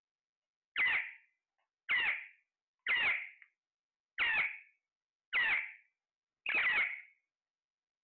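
A parakeet squawking six times, short calls about a second apart, each falling away quickly.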